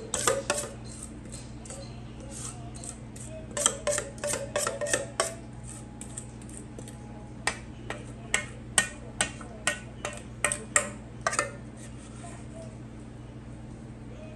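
Metal utensil tapping and scraping against a stainless steel mixing bowl in groups of sharp clinks, the longest run near the middle at about two taps a second, as muffin batter is scraped out of the bowl into a foil muffin pan.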